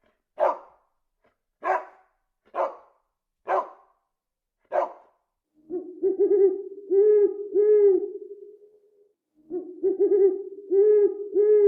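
Animal calls: a short bark-like call about once a second, five times. From about six seconds in come two bouts of repeated pitched hooting notes.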